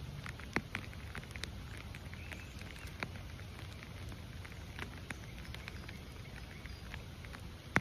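Rain falling, with scattered drops tapping sharply close by over a low steady rumble. A sharper tick near the end is the loudest sound.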